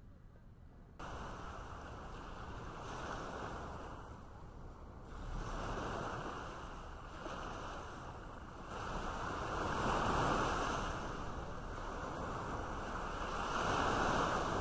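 Sea waves washing against rocks at the shoreline, a steady rushing that swells and eases every few seconds. It cuts in suddenly about a second in.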